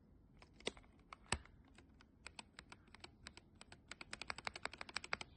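Typing on a mechanical keyboard fitted with Gateron Ink Black v2 linear switches: separate keystrokes, scattered at first, then quickening into a fast, even run in the second half.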